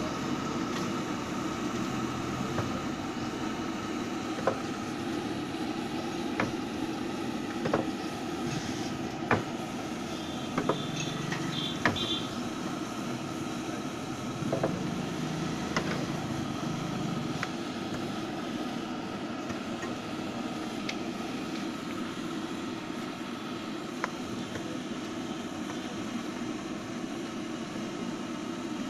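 Samosas frying in a large iron kadai of oil over a gas stove, a steady sizzle and burner noise, with scattered clicks and clinks of a ladle and steel utensils, most of them in the first half.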